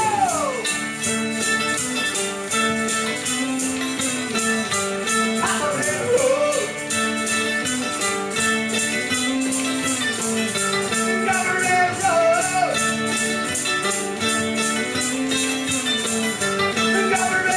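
Instrumental break played on mandolin and electric hollow-body guitar: a lead melody with sliding, bent notes over a steady repeating accompaniment, with no singing.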